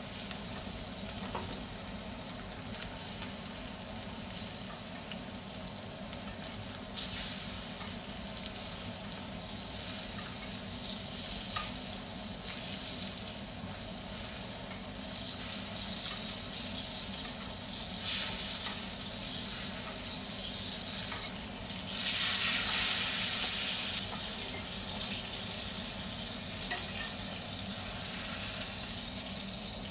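Beef steak sizzling in hot fat in a cast-iron skillet as it is basted with a spoon; the steady sizzle flares louder a few times, most strongly a little past two-thirds of the way through.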